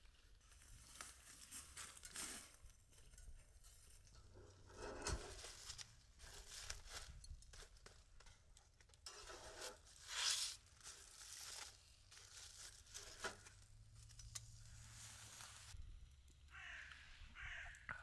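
Irregular rustling and tearing noises, with a crow cawing a few times near the end.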